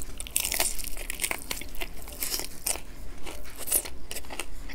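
A bite into crispy fried chicken coated in sweet-and-sour sauce, followed by chewing: a dense run of crackling crunches from the fried batter.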